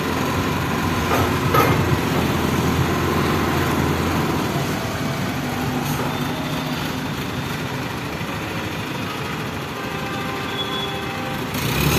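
Diesel engine of a mobile pick-and-carry crane running steadily as the crane drives up, getting louder near the end.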